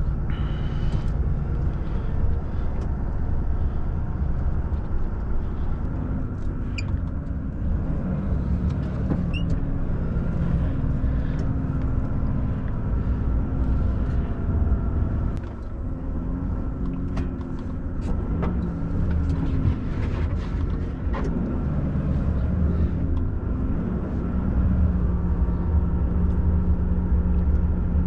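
Volvo FH16 truck engine heard from inside the cab, running steadily while driving, its pitch rising and falling as the engine speed changes. The sound dips briefly about halfway and is louder near the end.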